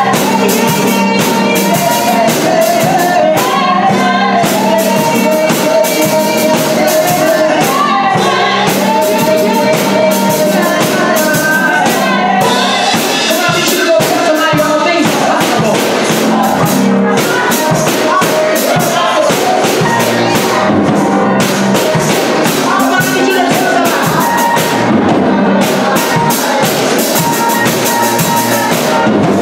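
Live gospel praise song: women singing into microphones over a Roland RD-700 stage piano and a drum kit.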